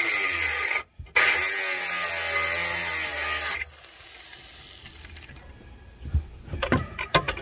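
Reciprocating saw cutting the rusted sheet-metal spring hanger pocket off the frame rail: a short burst, then a cut of about two and a half seconds with the motor's pitch wavering, stopping about three and a half seconds in. Scattered knocks and clatter near the end.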